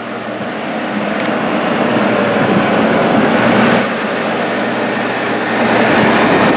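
Heavy snow-clearing vehicle working close by: a low engine drone under a loud, dense rushing noise that grows louder after about a second.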